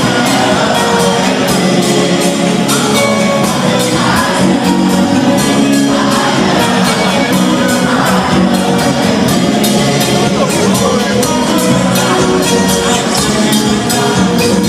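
Live gospel band playing an upbeat song with singing and a steady drum beat, loud throughout.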